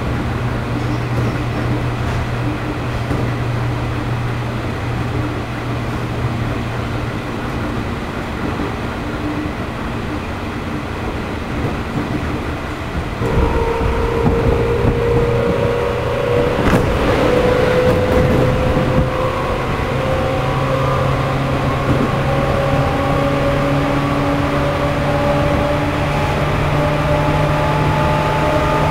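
Running sound of a JR East 211 series electric train, heard from motor car MoHa 211-1. Its traction motors have external cooling fans and use field-added excitation control, and this car is known for an unusual noise. For the first half the train runs with a steady low hum. About halfway through, power comes on and the motor whine grows louder and rises slowly in pitch as the train accelerates. There is one sharp click near the middle.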